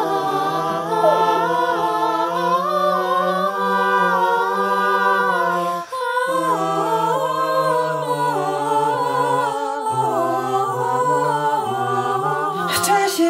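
Mixed group of voices singing a wordless a cappella harmony in slow, held chords over a sustained low note, with a brief break about six seconds in.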